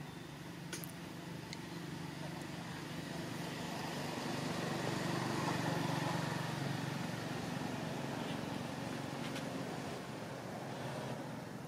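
A motor vehicle's engine drone that grows louder to a peak about halfway through, then fades again.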